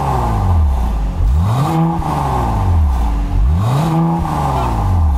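Mercedes-AMG C43's twin-turbo V6 through an Fi Exhaust valvetronic cat-back with the valves in auto mode, revved in place. It drops back to idle at the start, then is blipped twice about two seconds apart, each rev rising, held briefly and falling back to idle.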